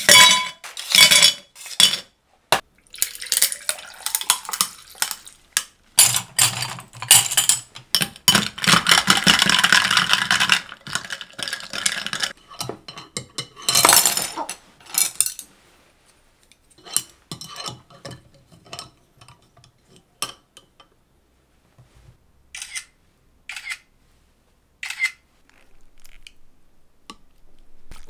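Ice cubes clinking into a tall drinking glass and a drink poured over them, then chopsticks and a spoon clicking now and then against a ceramic bowl.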